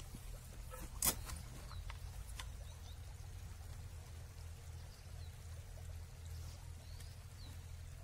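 Shallow stream trickling over stones under a steady low rumble, with a sharp click about a second in and a few lighter clicks as a camera backpack is opened and handled. Faint short high chirps come and go.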